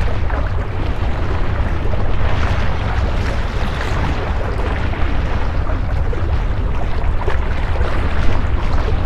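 Wind buffeting the microphone: a steady low rumble with hiss over it, with the sea washing on the breakwater rocks underneath.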